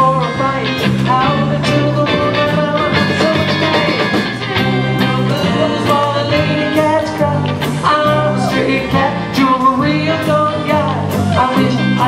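Live rock band playing: electric guitars, electric bass and drum kit, with the bass moving in steady stepped notes under regular drum hits.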